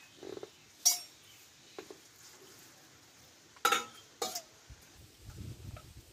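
Stainless-steel bowls knocking and clinking as cut ash gourd pieces are handled in them: three sharp metallic clinks with a short ring, one about a second in and two close together near the four-second mark, with soft handling sounds of the pieces between.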